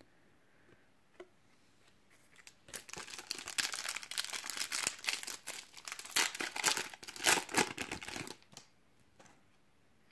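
Foil wrapper of a Donruss soccer trading-card pack crinkling and tearing as it is ripped open by hand, starting about three seconds in and lasting about six seconds.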